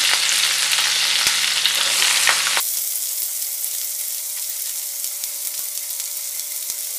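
Chopped onions sizzling in hot oil in a non-stick pan with cumin seeds and green chillies, just added for frying. About two and a half seconds in, the sizzle drops suddenly to a softer, thinner level.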